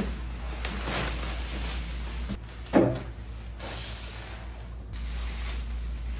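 Cardboard box being handled and its flaps opened, with rustling of packing paper and plastic. There is one sharp thump a little under three seconds in.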